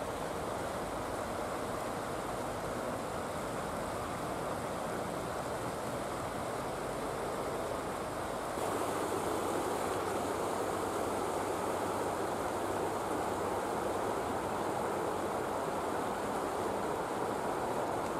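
A river rushing past in a steady, even flow. A little past eight seconds in, the rush jumps abruptly to a louder, fuller sound.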